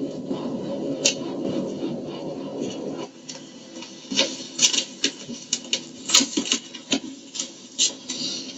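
A low rumble for about three seconds, then a run of light, irregular clicks and taps.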